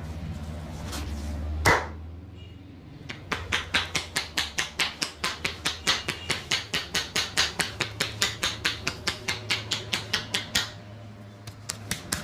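Hand strikes of a percussion massage on a person's body: one louder slap, then a fast, even run of chopping blows at about five a second for some seven seconds.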